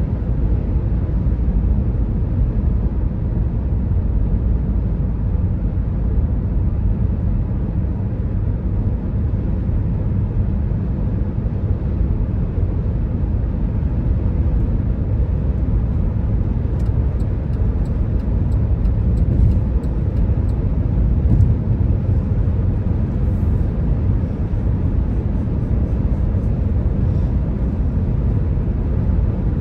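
Steady road and engine noise of a car cruising at highway speed, heard from inside the cabin: an even low rumble with faint scattered ticks in the second half.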